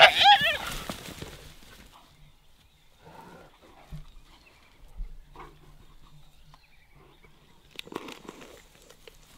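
A burst of loud, high-pitched, rapidly repeated chattering calls in the first second from African wild dogs and a spotted hyena squabbling over an impala carcass, then only faint scattered sounds, with a short louder noise near the end.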